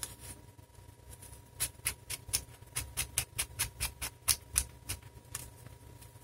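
Neutrik etherCON connector being screwed together by hand: a run of sharp clicks, roughly four a second, that starts about one and a half seconds in and stops about a second before the end.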